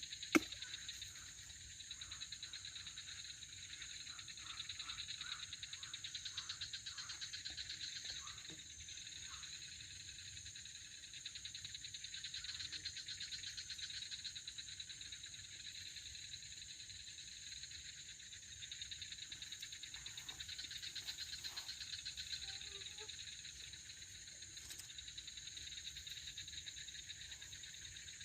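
Steady chorus of night insects trilling in fast, dense pulses, high-pitched. There is one sharp click a moment after the start.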